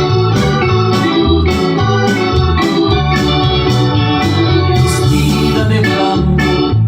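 Electronic organ playing a tune with a bass line and a steady beat.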